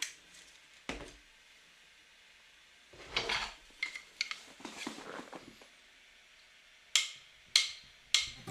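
A few scattered light clicks and knocks, with short spells of soft scraping in between, like small hard objects being handled.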